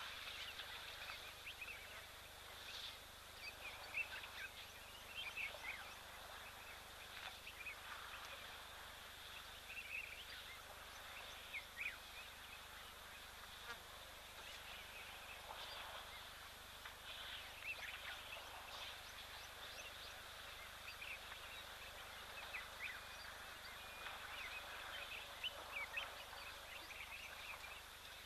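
Faint wild-bird chirps and short whistles, many brief calls scattered and overlapping, over a steady high hiss of outdoor ambience.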